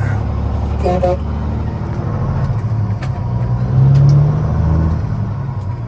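Heavy diesel truck engine running steadily, its low drone swelling louder for about half a second around four seconds in.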